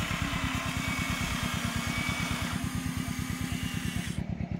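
Remote-control model excavator running, with a rapid, even engine-like chugging of about ten pulses a second as it swings its boom and dumps soil into a model dump truck. A higher whine from its motors runs along with the chugging and fades out in the second half.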